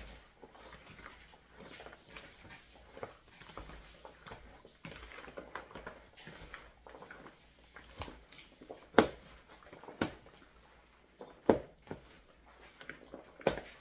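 Kitchen handling noise while salting and seasoning raw chicken backs: a run of small clicks and patter, with four sharp knocks in the second half.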